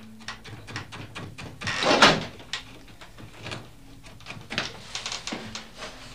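Irregular wooden knocks and clatter of a hand loom being worked, with a louder rustling scrape about two seconds in.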